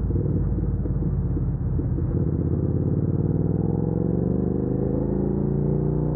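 Suzuki SV650X's 645 cc V-twin engine under hard acceleration, its note climbing steadily from about two seconds in as the bike speeds up.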